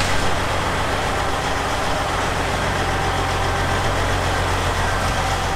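Rotochopper B66 grinder's large diesel engine idling steadily, a loud low hum with a faint steady whine above it.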